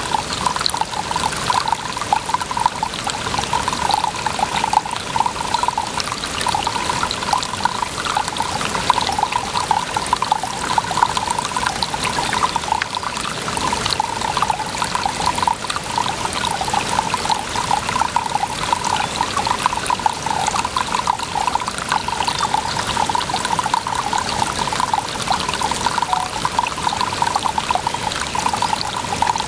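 Running water pouring and trickling steadily, a continuous babble without a break.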